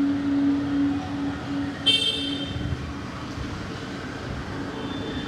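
Busy street traffic: a steady wash of vehicle noise with a low steady hum for the first half or so, and a short, high-pitched horn toot about two seconds in.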